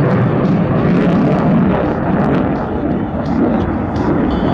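Jet noise from an F-35A Lightning II's Pratt & Whitney F135 afterburning turbofan as the fighter flies its demo manoeuvres overhead: a loud, steady rumble that eases slightly about three seconds in.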